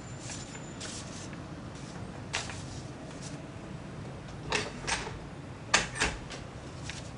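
A few short, light knocks and clicks over a steady low hum. The loudest are a pair about four and a half seconds in and another pair about six seconds in.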